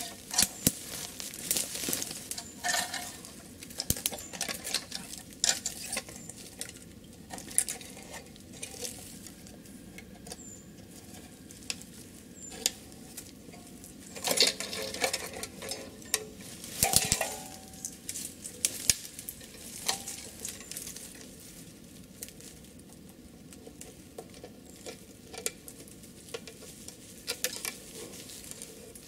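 Close-up handling noise from making a bait of honey, butter and fish oil on gauze: scattered small clicks, taps and rustles, with a few louder bursts around the middle.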